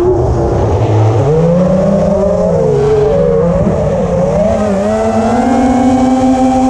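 Small quadcopter's electric motors and propellers whining, low at first and rising in pitch about a second in as throttle comes back on after a roll, wavering with stick input, then settling into a steady, slowly rising whine. A low rumble of wind and prop wash sits under it on the onboard camera's microphone.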